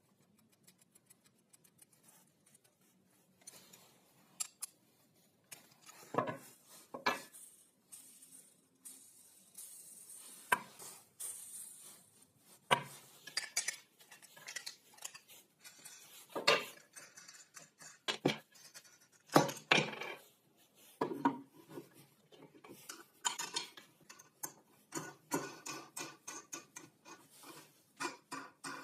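Metal parts and tools clinking and knocking as they are handled, in irregular sharp strikes, with a brief scraping hiss about ten seconds in and quicker clicking near the end.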